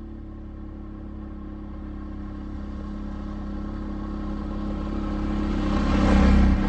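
Can-Am ATV engine running steadily as the quad approaches along a dirt trail, growing louder and loudest near the end as it passes close, with tyre noise on the dirt rising with it.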